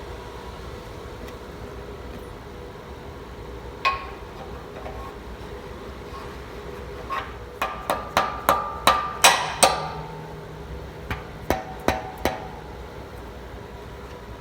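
Hammer striking metal with a ringing tone: a single blow about four seconds in, then a quick run of about eight blows a little after halfway, and four more shortly after. A steady hum runs underneath.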